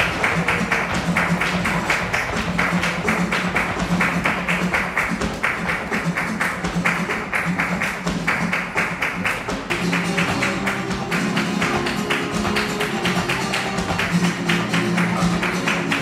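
Flamenco music: guitar playing over dense, rapid percussive tapping. About ten seconds in, a layer of higher guitar notes joins.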